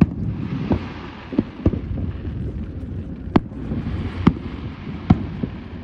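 Aerial fireworks bursting: a string of sharp bangs, about seven in a few seconds and irregularly spaced, the loudest in the second half, over a steady low background rumble.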